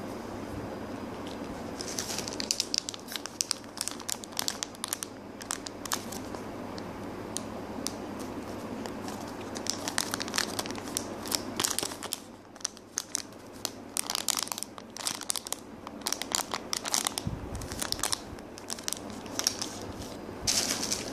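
Plastic packaging crinkling as it is handled, in several bursts of crisp crackles with pauses between them, over a steady low background hum.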